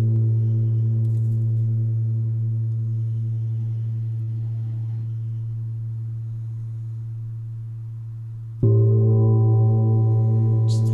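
Deep-toned struck metal sound-healing instrument ringing and slowly fading, its low tone pulsing gently as it sustains. It is struck again about nine seconds in, louder and brighter, with more overtones.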